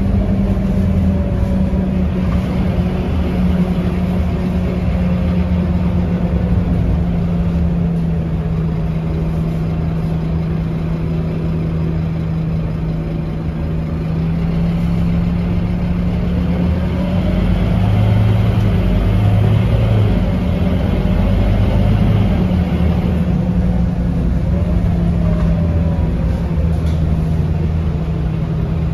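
Scania K230UB city bus engine running with a steady low drone, its note rising and falling as it speeds up, once around the middle and again near the end.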